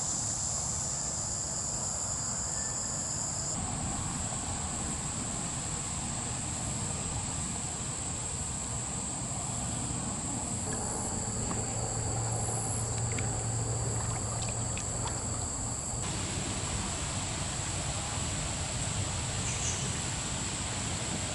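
Steady high-pitched insect chorus, with a low rumble underneath; the chorus changes abruptly twice.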